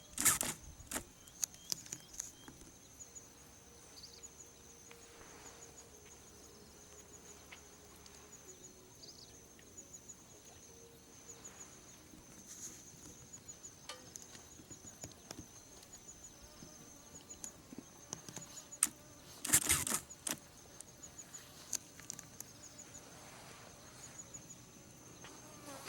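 Insects calling in a steady, high, pulsing trill, with scattered clicks and a short loud rustle or knock about twenty seconds in.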